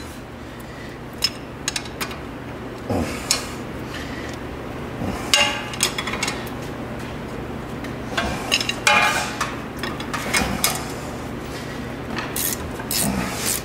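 An 18 mm ratcheting wrench clicking in short runs on a truck's front-suspension nut, with scattered metallic clinks of the tool against the parts, over a low steady shop hum.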